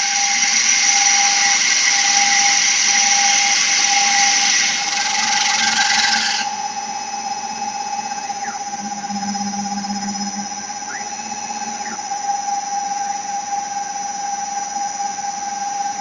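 Stone CNC router's spindle motor running with a steady whine while its core drill bit grinds into a stone slab with a loud hiss. The grinding stops suddenly about six and a half seconds in, leaving the spindle's whine.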